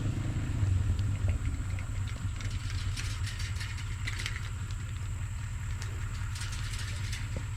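A motor vehicle's engine idling: a steady low rumble, with faint light clicks and rustles over it.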